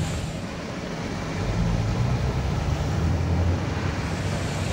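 Muddy rainwater rushing out from under a small concrete-slab culvert into a flooded ditch: a steady noise of flowing water with a low rumble.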